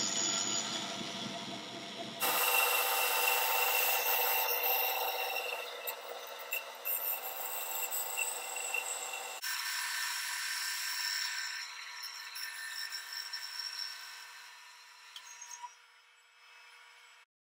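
Band saw cutting through a plywood jig blank, the blade rasping through the wood over the running machine. The sound changes abruptly twice, fades near the end and then cuts off suddenly.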